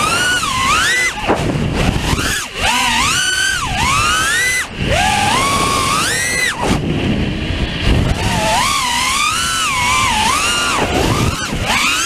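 Brushless motors of a five-inch FPV racing quadcopter (T-motor F60s on 5S, spinning three-blade 5x4x4 props) whining, heard from the onboard camera. The pitch sweeps up and down with each throttle punch and pull-back, with short drops about two and a half seconds in and again near five seconds.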